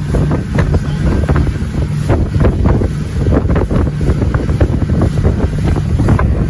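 Wind buffeting the microphone on a pontoon boat moving at speed, over water rushing and splashing against the hull in irregular slaps. A steady low hum from the boat's motor runs underneath.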